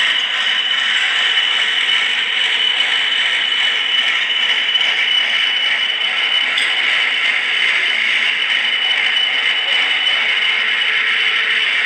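An 80 mm face mill cutter on a milling-cum-drilling machine face-milling a metal plate: a steady, unbroken cutting noise with a constant high-pitched tone running through it.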